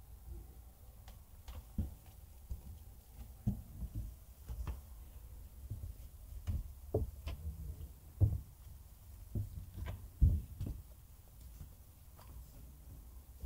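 Footsteps on wooden boards and steps: a series of irregular dull knocks, about one every half second to a second, over a steady low rumble.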